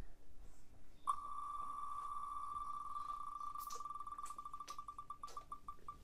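Wheel of Names spinning-wheel tick sound playing from a phone: high ticks that start about a second in, so fast at first that they blend into one steady tone, then slowing into separate, widening ticks as the wheel loses speed.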